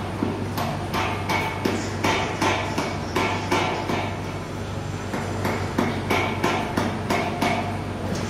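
Repeated hammer blows, about three a second, easing off briefly in the middle before picking up again, over a steady low hum.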